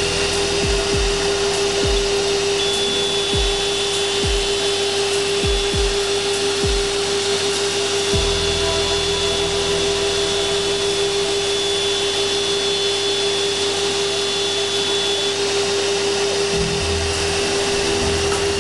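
CNC router spindle spinning at a steady pitch while its bit routs through plastic sheet, over the steady hiss of dust extraction through the hose at the cutter. A series of brief low swoops sounds in the first eight seconds.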